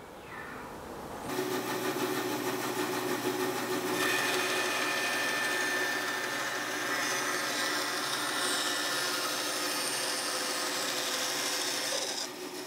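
Bandsaw running steadily, coming in about a second in, its blade cutting a hardwood strip into angled wedges, with a higher cutting hiss from about four seconds in.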